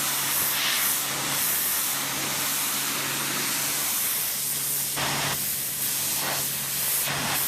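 Sun Joe SPX4000 electric pressure washer running, its water jet hissing steadily against concrete over a steady low motor hum.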